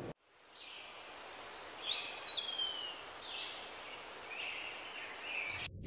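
Outdoor background ambience: a steady noise with a few faint high bird chirps, the clearest a short call that slides up and then down about two seconds in. It stops abruptly near the end.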